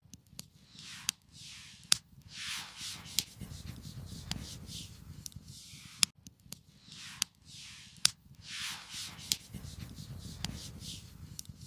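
Campfire crackling with sharp pops and clicks scattered throughout, over repeated rustling, scraping swishes of about a second each.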